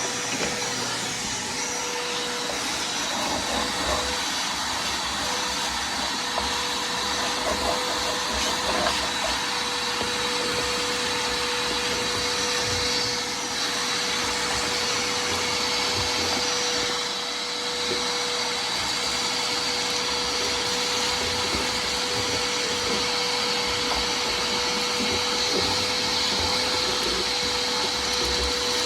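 Vacuum cleaner running steadily with a constant whine, sucking up debris, with a few light clicks in the first several seconds.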